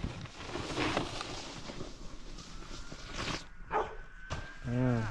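Snowboard scraping over snow, then near the end a dog barking in drawn-out yelps that rise and fall in pitch.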